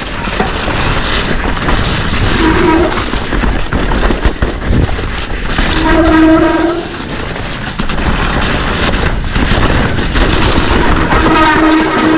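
Mountain bike descending a rough, wet trail at race speed: constant rattling and knocking from the bike over roots and rocks under a heavy noise of wind, rain and tyres on the helmet camera. Three times a steady buzzing tone lasting about a second rises over the rattle.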